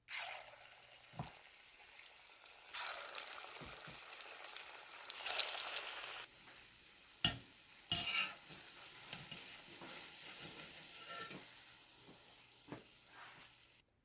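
Lauki (bottle gourd) snack frying in hot oil: a steady sizzle that swells louder twice, with a few sharp knocks of a utensil against the pan.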